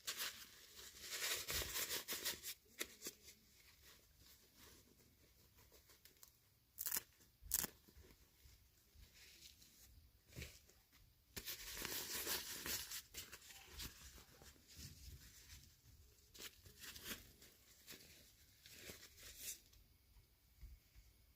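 Toy packaging being torn open and crinkled by hand in several spells, with two short sharp crackles about seven seconds in.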